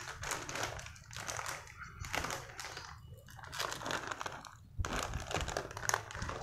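Plastic cat-food bag crinkling and rustling as it is handled, in a string of irregular bursts.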